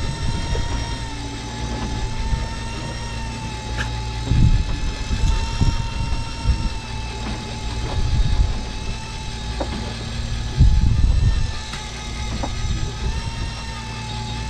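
Fishing boat's engine running steadily with an even, slightly wavering hum, broken a few times by short low rumbles.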